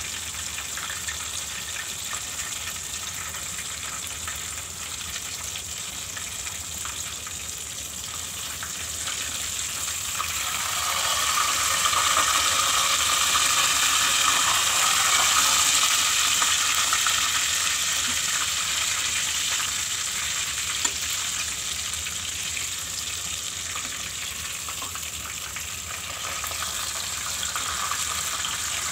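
Whole chicken deep-frying in hot oil in a stainless steel pot: a continuous crackling sizzle that swells louder from about ten seconds in and eases off again after about twenty.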